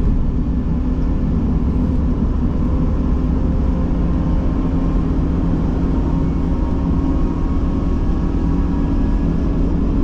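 Steady engine and road noise of a camper cruising at constant speed, heard from inside the cab, with a constant low drone and no change in pace.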